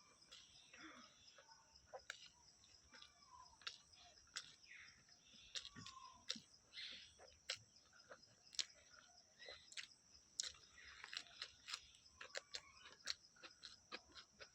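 Faint mouth sounds of eating: chewing and lip smacking, with many irregular sharp clicks, over a steady high hiss.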